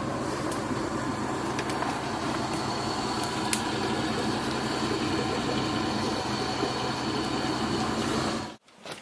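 Off-road vehicle engine running steadily at low revs, with a few faint clicks over it. The sound cuts off about eight and a half seconds in.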